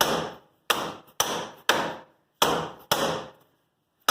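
Six hammer blows on metal, about two a second, each a sharp strike with a short metallic ring, then a short pause near the end.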